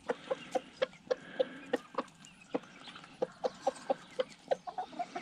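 Chickens clucking in quick, short clucks, about three a second, with a few sharp ticks mixed in.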